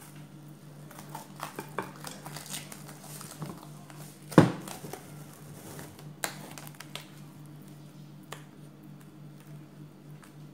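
Plastic cling film being handled and stretched over a glass baking dish: crinkling rustles and light clicks, with one sharp knock against the dish about four and a half seconds in. A steady low hum runs underneath.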